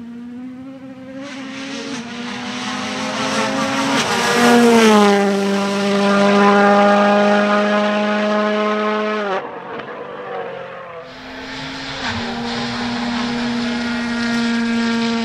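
Rally car engines running hard. About four seconds in, one engine note rises and holds loud and steady as the car passes, then cuts off abruptly. After a short gap, a second car's engine holds a steady note to the end.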